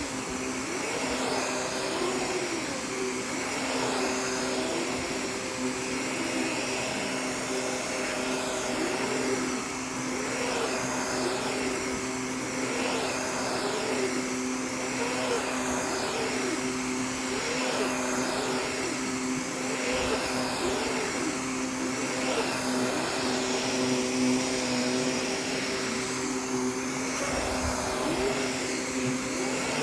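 Canister vacuum cleaner running steadily while it is pushed and pulled over a rug. Its pitch rises and falls with each stroke, about once every two seconds.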